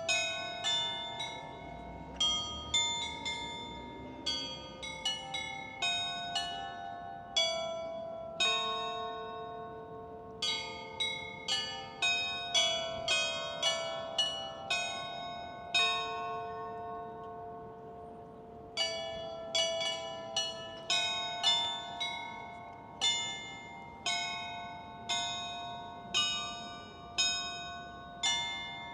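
Tuned bells struck one after another in an uneven melodic pattern, each strike ringing out and fading, with a lull of a few seconds past the middle.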